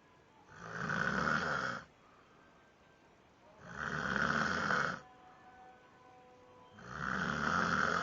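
Snoring: three long snores about three seconds apart, each lasting a little over a second and standing well above the quiet between them.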